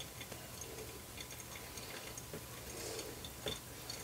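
Faint, irregular ticks and clicks, about four of them, over a low steady hum.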